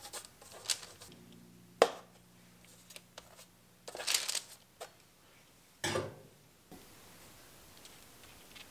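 Parchment baking paper crinkling and rustling in short bursts as hands handle and set down shaped dough rolls on a baking tray, with one sharp tap about two seconds in.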